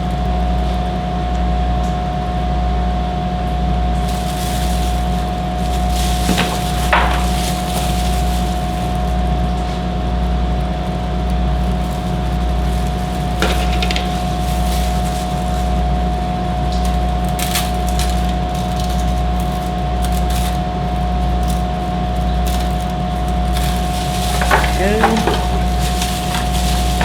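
A steady low hum with a constant higher tone over it, and a few brief knocks and rustles of kitchen handling now and then.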